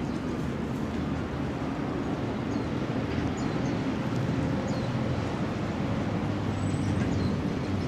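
Steady low rumble of distant road traffic, with a few faint short high chirps now and then.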